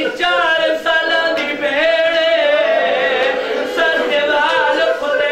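A man's voice chanting a mournful majlis lament in long, wavering held notes.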